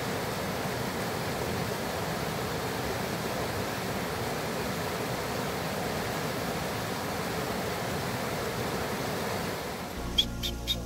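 Rocky mountain stream rushing steadily over boulders. Near the end the rush gives way to a few short, sharp clinks.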